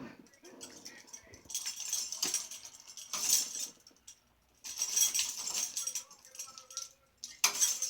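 A pet bird pulling and shaking a metal chain toy on its cage, the chain clinking and rattling in three bursts.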